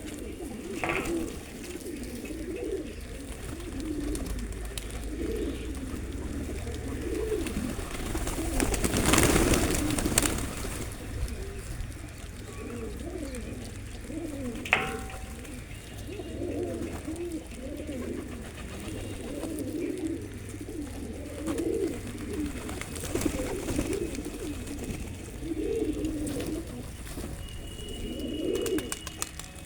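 Pigeons cooing over and over, several low coos following one another throughout. A louder noisy burst comes about nine to ten seconds in, and a single sharp click near fifteen seconds.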